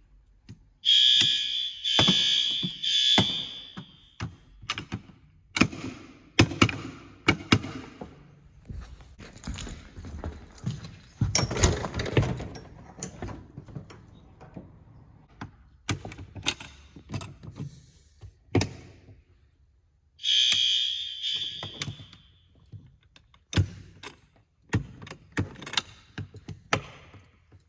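School fire alarm horns sounding during a system test: three short blasts about a second in, then one shorter burst about twenty seconds in. Scattered knocks and clicks come between the blasts.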